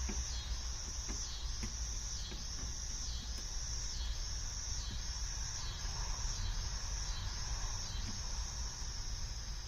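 Crickets chirping steadily: a high trill broken by short gaps about every three-quarters of a second. A low hum and a few faint clicks sit underneath.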